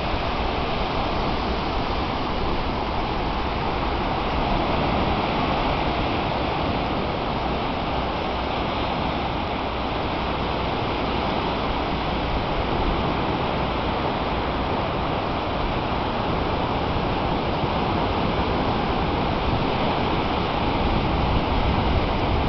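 Steady rushing noise of wind and water, even throughout with no distinct events.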